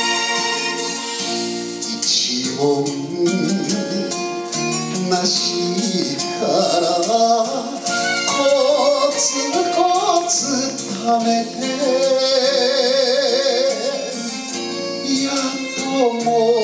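An instrumental backing track plays alone at first, then a man sings a Japanese popular song over it into a microphone, his voice carried on a strong vibrato.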